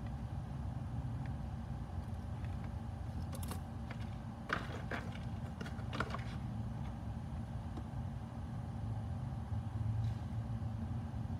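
Steady low hum of the workshop with a few short clicks and taps of hand tools being picked up and set down on a silicone bench mat, between about three and six seconds in.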